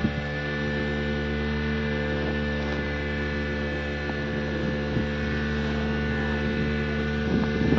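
Steady hum of several held tones, heard from inside a cable car gondola as it travels along its cable.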